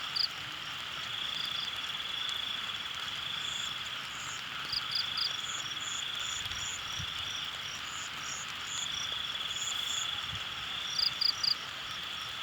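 A chorus of frogs and insects: a steady high trill that swells and fades, with groups of three or four short, sharp high calls standing out near the start, about five seconds in, and again about eleven seconds in.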